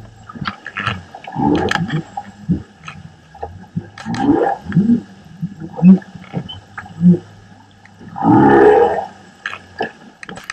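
Humpback whale song heard underwater: a string of varied calls, short low notes and sweeping moans, with the longest and loudest call about eight seconds in, among scattered clicks.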